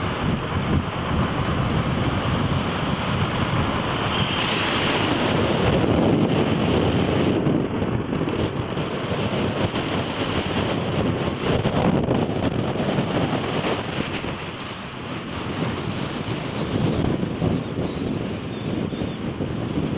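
Wind buffeting the microphone of a moving vehicle, mixed with road and engine noise, as a steady, gusting rush.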